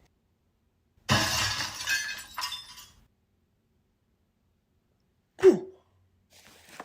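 Glass shattering loudly about a second in, with the pieces tinkling for about two seconds. A short sound dropping in pitch follows near the end.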